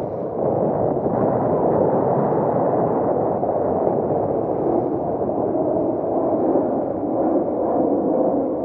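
Steady, muffled rush of water along the inflatable hull of a Tiwal 3 sailing dinghy moving at speed, mixed with wind noise.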